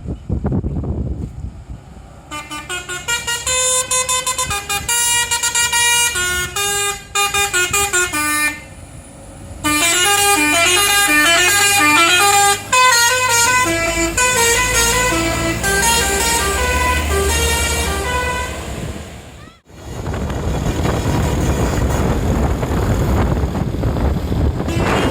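Basuri telolet musical horn on an Eka Persada bus playing a fast, stepping tune of several horn tones at once, with a short break partway through. The tune stops abruptly a few seconds before the end, leaving wind and road rush.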